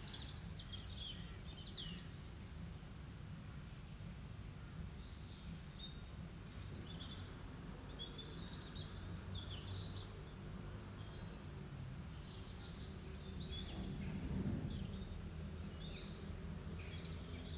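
Birds chirping in the background, many short high calls scattered throughout, over a low steady hum.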